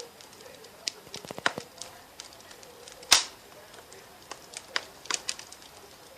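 Irregular light clicks and crackles, with one loud sharp snap about three seconds in.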